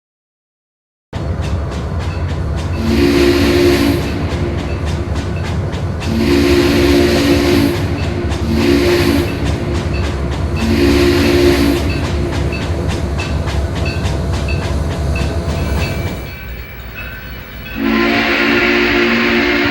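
Steam locomotive chime whistle blowing several blasts, long, long, short, long, the grade-crossing signal, then a last long blast near the end, over the steady rumble and rapid clatter of the moving train. It is silent for about the first second.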